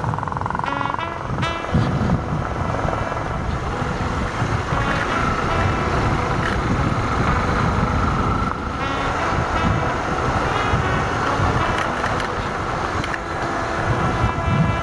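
Engine of a moving vehicle running steadily, with wind buffeting the microphone.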